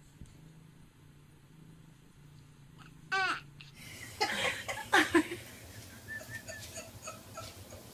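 A short cry falling in pitch about three seconds in, then a person laughing in short, uneven bursts.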